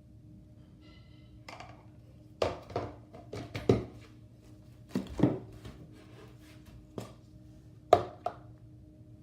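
Homemade slime being pressed and squeezed by hand, giving a string of sharp pops and clicks in small clusters, the loudest near the end.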